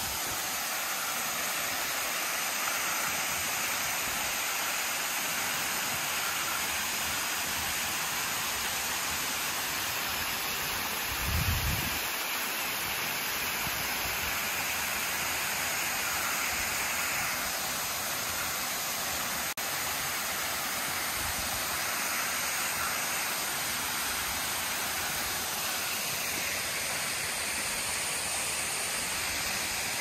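Saruo Falls, a two-tier waterfall, rushing steadily with an even hiss of falling water. A brief low thump sounds about eleven seconds in.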